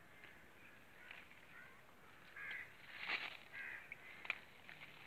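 Faint bird calls: a few short calls in the second half, with a sharp click about four seconds in.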